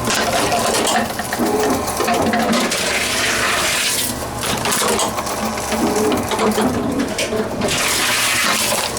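Tomra reverse vending machine running as bottles are fed in, a continuous mechanical rush and rattle that swells and fades every couple of seconds.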